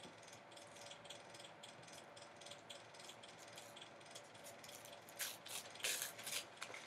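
Rolled paper poster being unrolled and handled: faint crinkling and ticking, then a few louder rustles of the paper near the end.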